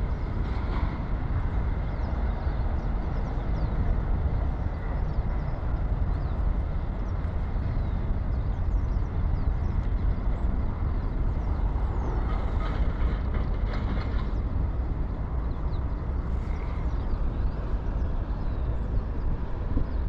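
Steady low outdoor rumble that wavers in loudness, with faint high bird chirps scattered over it.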